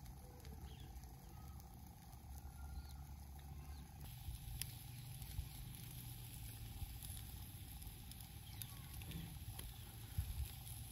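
Charcoal embers roasting skewered chicken, with a few faint ticks and crackles over a low steady rumble.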